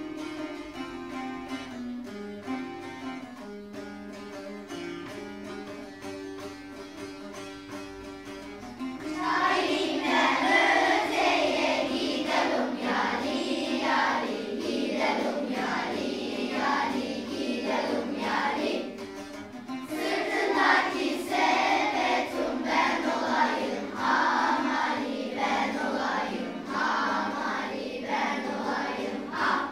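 A Turkish folk song (türkü): a plucked-string melody plays alone at first, then from about nine seconds in a group of children sings along in unison.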